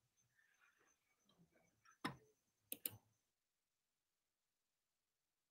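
Faint clicks over a faint low murmur, the two sharpest about two and three seconds in; a little past three seconds the sound cuts off to dead silence.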